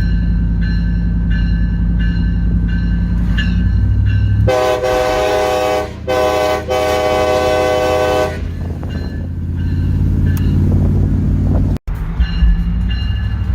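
Graham White E-Bell electronic locomotive bell dinging about one and a half times a second over the pickup's engine and road noise. About four seconds in, the Nathan Airchime K5LA five-chime train horn blasts for about four seconds, broken twice very briefly. The bell dings again near the end.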